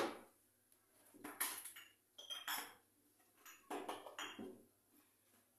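Kitchen utensil clinking and clattering against a dish in several short bursts while the spice-and-oil glaze is put on the dough.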